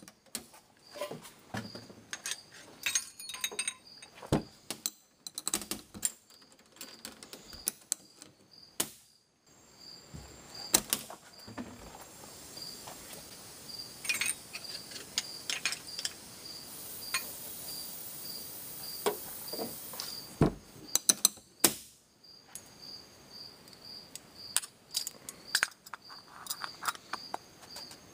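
Small metal engine parts and a blast cabinet's door and latch being handled: scattered light clicks, knocks and clinks of metal on metal, with a soft steady hiss through the middle.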